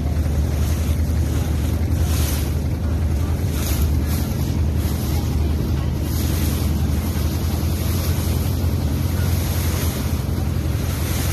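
Steady low drone of a small boat's engine, with water rushing past the hull and wind buffeting the microphone.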